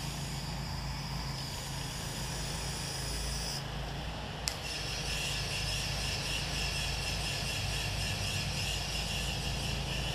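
Soft-wash rig's motor running steadily, with the hiss of low-pressure spray from a wand aimed up under the gutter. The hiss briefly drops out a little before halfway and comes back with a sharp click.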